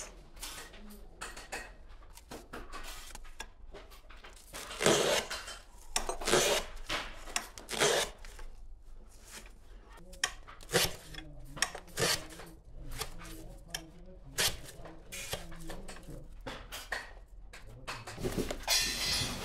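Hand work on paint brushes: irregular rubbing and scraping, broken by light knocks and clinks of small parts. The loudest knocks come about five, six and eight seconds in, and again near the end.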